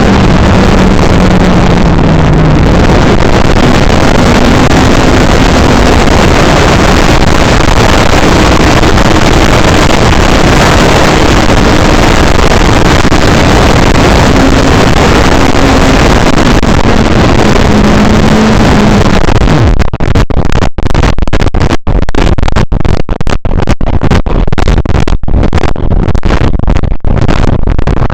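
Heavy wind buffeting the microphone, over the drone of the E-Flite Draco RC plane's electric motor and propeller, whose pitch shifts up and down. In the last third the sound keeps cutting out in many brief gaps.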